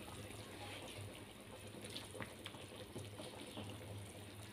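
Chicken broth simmering faintly in a large aluminium pot, with a few soft pops and the light slosh of a plastic spoon stirring it.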